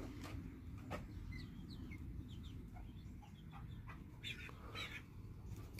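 Faint bird calls: a run of short, high chirps between about one and three and a half seconds in, then a couple of louder short calls near the end.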